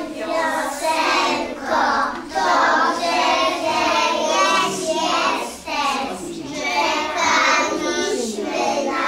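Young children singing a song together in sustained, held notes.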